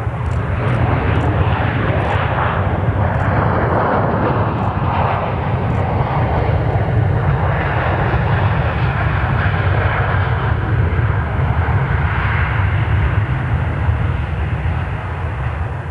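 Airliner's engines passing close by: a loud, broad roar that builds quickly at the start, then holds steady.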